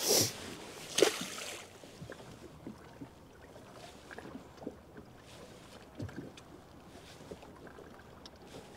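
Small waves lapping against the hull of a drifting boat, with two short loud noises in the first second.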